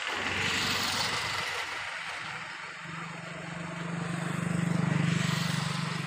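A motor vehicle passing: road noise swells about a second in, then a low engine hum grows louder, peaking near the end.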